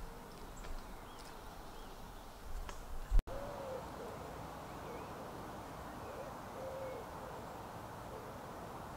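A sharp knock about three seconds in, then an owl hooting: a series of short, low hoots repeated every second or so over a steady outdoor hiss.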